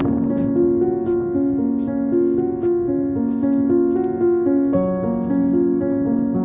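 Background music: piano or keyboard playing held notes and chords in a slow, even progression.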